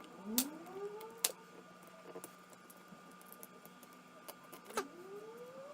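Adhesive tape being slowly peeled off a phone's frame, giving two rising squeaks, one at the start and one near the end, with a few small clicks between.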